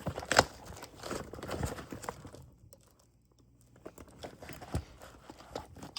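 Handling noise from knives and gear being picked up and moved about: rustling and crinkling with light clicks, the sharpest click about half a second in, and a short quiet pause midway.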